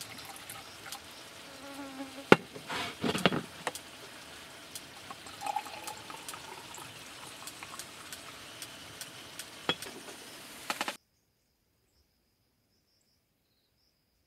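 Soju and then beer poured from glass bottles into a glass beer mug: liquid running into the glass, with scattered sharp clicks and a loud clink about two seconds in. The sound cuts off abruptly about eleven seconds in, leaving only a faint high insect hum.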